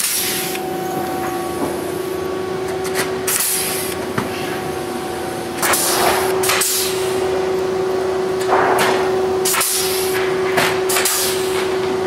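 Pneumatic blind-rivet guns pulling rivets into aluminium wing ribs and spars. Each pull gives a short hiss of air with a snap as the mandrel breaks, about seven times at uneven intervals, over a steady hum.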